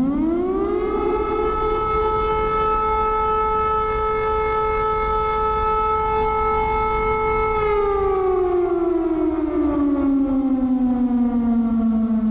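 Civil defence air-raid siren winding up to a steady wail, holding it for several seconds, then winding slowly down in pitch: the alert for an air attack.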